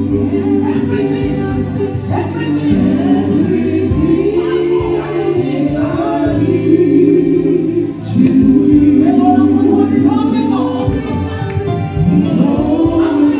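Church congregation singing a gospel worship song together, with held accompanying chords sounding steadily underneath the voices.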